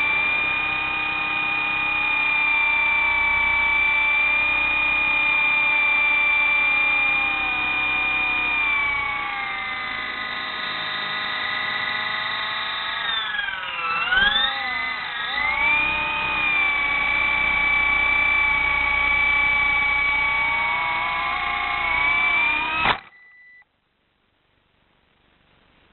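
Radio-controlled helicopter's motor and rotor whining at a steady high pitch, the pitch briefly dipping and wavering partway through before settling again, then cutting off abruptly near the end.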